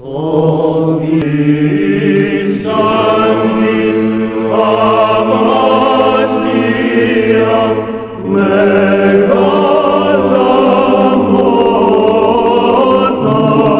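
Choir chanting sacred music in long held notes that move from chord to chord, with a brief drop about eight seconds in.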